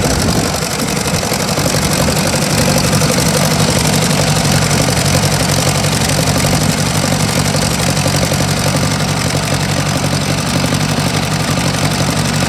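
Ford 2000 row-crop tractor's engine idling steadily.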